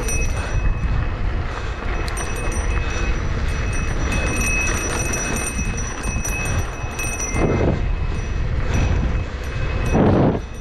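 Mountain bike rattling over a rough downhill trail, tyres rolling on dirt under a steady low rumble of wind on the microphone, with two brief louder rushes near the end.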